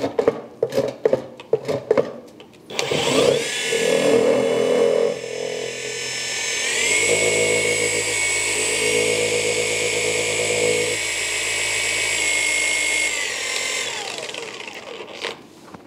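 Cordless polisher spinning a polishing pad inside a pad-washer bucket. A run of clicks comes first, then the motor whine starts about three seconds in, steps up in pitch about seven seconds in as the speed is raised, holds steady, and winds down and stops near the end.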